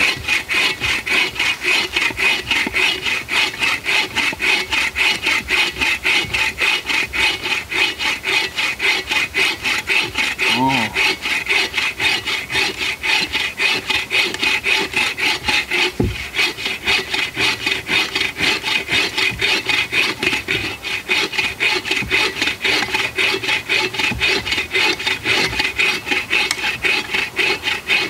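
Agawa folding bow saw with its all-purpose blade cutting through a hophornbeam (ironwood) log, a fast, even back-and-forth rasp of steady strokes. A single knock about two thirds of the way through.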